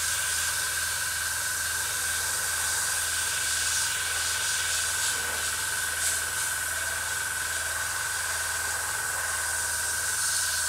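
Gravity-feed airbrush spraying lacquer paint, a steady hiss of air with a thin steady whistle, over a low pulsing hum.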